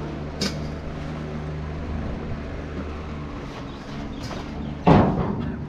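An engine running steadily with a low hum, a sharp click about half a second in and a loud thump near the end.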